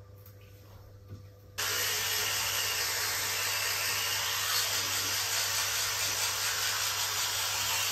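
Electric toothbrush switched on about one and a half seconds in, then running steadily with an even high buzz while brushing teeth.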